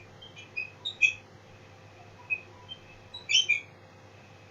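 A small bird chirping in short, high calls several times, over a faint steady hum.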